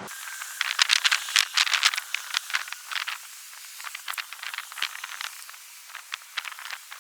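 Metallic rattling and clicking of lug nuts being threaded onto the wheel studs and snugged down. The clicks come thick and fast for the first few seconds, thin out, then bunch up again near the end.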